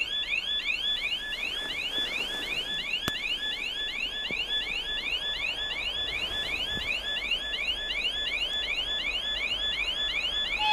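Electronic railway warning alarm sounding a fast, repeating rising whoop, about three times a second, with a few faint knocks underneath.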